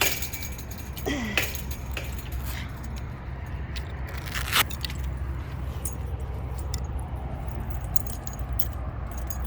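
A few sharp metallic clinks and clacks: one at the start, a cluster about a second in and a loud one near the middle, over a steady low rumble.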